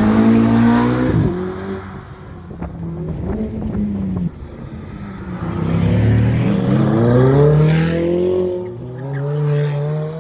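Ferrari V8 supercars accelerating hard one after another. The exhaust note climbs in pitch and drops at each upshift, about a second in and again around four seconds, then climbs again as the next car pulls away.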